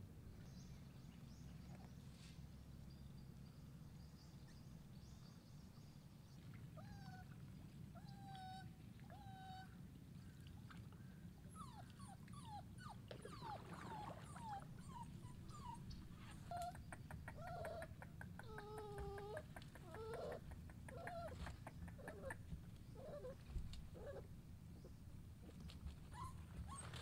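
A stranded puppy whimpering and crying in short, high, sliding whines over a low steady rumble. Three faint cries come about seven seconds in, and from about twelve seconds on the cries come thick and fast.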